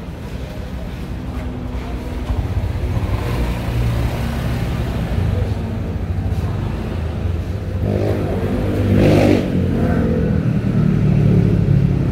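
Road traffic of cars and motorcycles passing close by, the engine sound building up over the first few seconds, with one vehicle passing loudest about nine seconds in.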